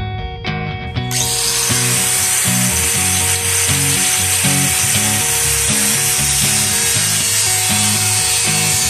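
An angle grinder with a thin cut-off disc starts cutting into the steel shell of an old water boiler about a second in, then runs steadily with a harsh hiss. Background guitar music plays underneath.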